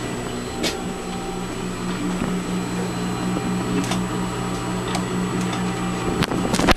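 Sewing machine running with a steady motor hum and an even, repeating stitching rhythm, with a few light clicks.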